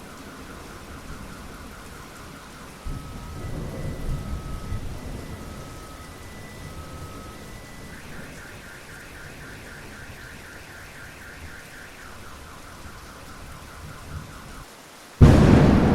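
Steady rain with a low roll of thunder a few seconds in, then near the end a sudden, very loud crack of close lightning that trails off into rumbling.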